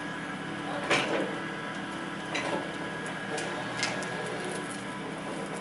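Linde K10 battery-electric man-up order picker running with a steady electric hum and whine. There are a few sharp clicks or knocks: the loudest about a second in, then others about two and a half and four seconds in.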